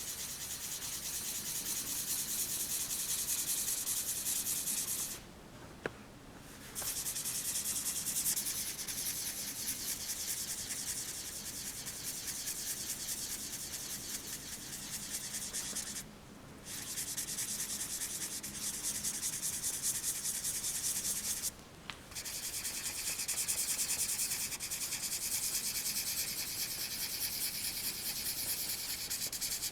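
Graphite pencil scratching across paper in continuous sketching strokes. The strokes stop briefly three times, about five, sixteen and twenty-one seconds in, with a single light click during the first pause.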